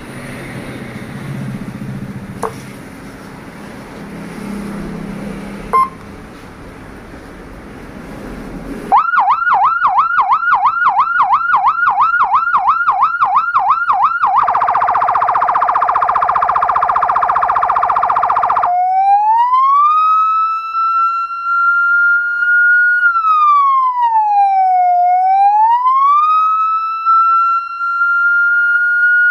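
Electronic siren from a 12 V X5 siren amplifier driving a 100-watt horn speaker, switched through its tones by remote. After about nine seconds of low background with two short clicks, a fast yelp warbles about four times a second. Then comes a harsh buzzing tone for about four seconds, and then a slow wail that rises, holds, falls and rises again.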